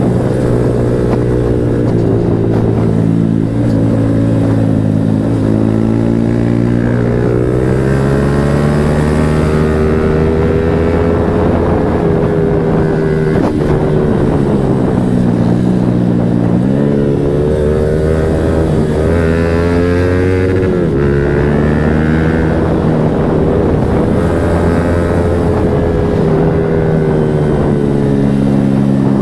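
Yamaha MT-15's single-cylinder engine running loud through an aftermarket Akrapovic exhaust, its pitch holding steady for a few seconds at a time, then dropping and climbing again as the revs change.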